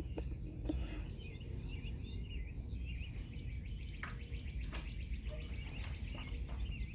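Several birds chirping and calling, short scattered notes over a steady low background rumble.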